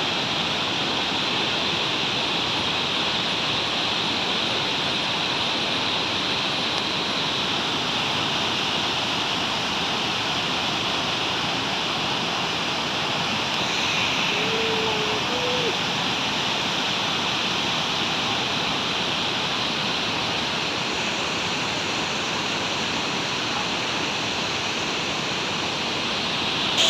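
A waterfall in rainy-season flow: an even, steady rush of falling water that does not change.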